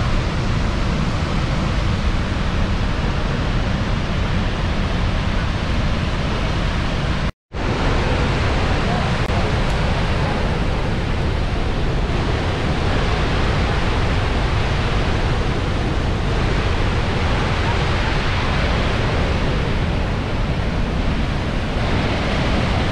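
Steady, loud rush of the falling water at Niagara Falls. It cuts out for an instant about seven seconds in and then carries on unchanged.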